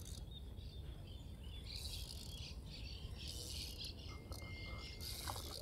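Faint birds chirping, with three short bursts of high hissing buzz and a brief thin steady whistle about four seconds in.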